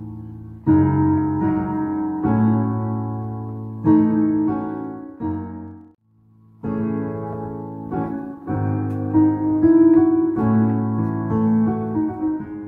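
Yamaha digital keyboard playing piano-sounding chords, each struck and left to ring and fade, in a slow progression that includes A5/GbMm7 and Ab5/Ab7. The sound breaks off briefly about six seconds in, then the chords resume.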